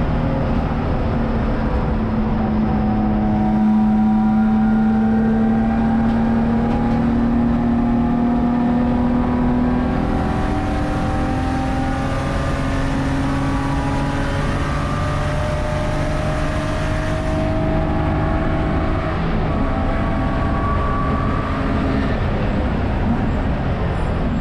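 Spec3 race car's engine at hard throttle. Its pitch climbs steadily and drops back several times through the lap.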